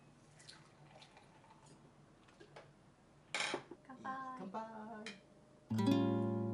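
A single sharp clink of glassware about halfway through, then a few short voices as the glasses are raised in a toast. Acoustic guitar background music starts near the end and is the loudest sound.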